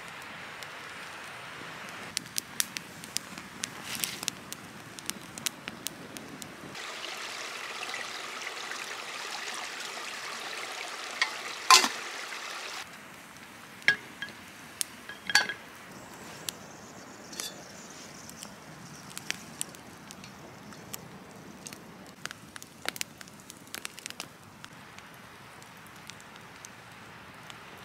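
Twig campfire crackling with frequent sharp pops. In the middle, a steady hiss of liquid pouring runs for about six seconds. A little after that, two metal clinks come as the kettle is set down by its handle.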